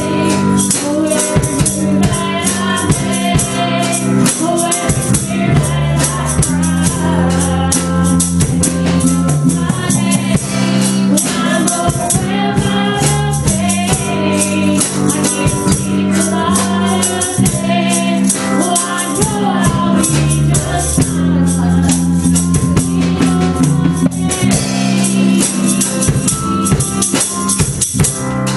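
Live church band playing a gospel song: a woman singing lead over a drum kit, electric bass guitar and keyboard, with a quick, steady percussion rhythm.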